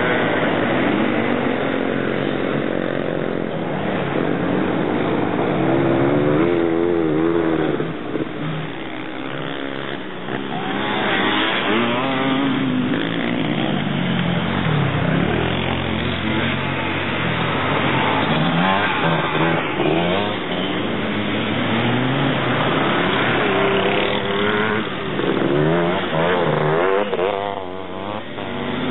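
Engines of three-wheeled ATC trikes racing, revving up and down as they accelerate and corner, with several engine notes overlapping.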